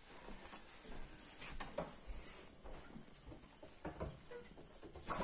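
Hen on a wooden floor: soft, irregular taps and scuffs, with a faint short low cluck about four seconds in.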